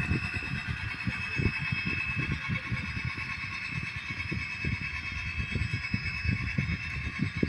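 HO-scale model train running up a grade. A steady high whine sits over a continuous irregular low clatter and rumble.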